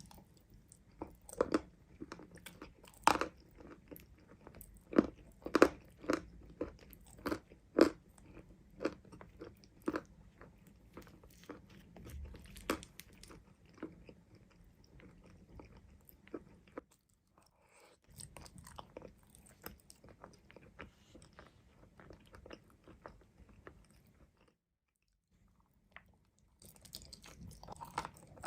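Close-up mouth sounds of someone biting and crunching hard mountain chalk, sharp crisp crunches coming every second or so with softer chewing between. The crunches grow softer after about 17 seconds, stop briefly around 24 seconds in, and return louder near the end.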